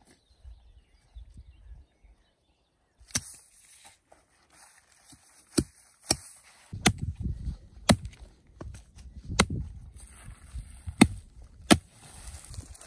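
A Kent pattern bushcraft axe striking into a green spruce trunk: about eight sharp chopping blows at uneven intervals, with rustling of brush between them.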